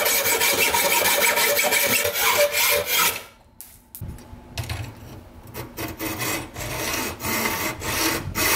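Hacksaw cutting through a bolt held in a C-clamp, steady back-and-forth strokes of the blade scraping through the metal. The sawing stops briefly about three seconds in, then resumes more quietly.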